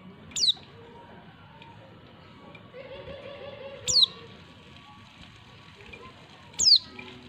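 Female white-eye (pleci) giving three short, sharp down-slurred call notes, each a quick high-to-lower sweep, spaced roughly three seconds apart.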